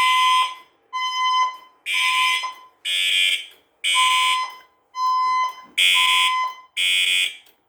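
Fire alarm system in alarm after a smoke detector activation, sounding its evacuation signal as even buzzy pulses with a steady tone, about one a second.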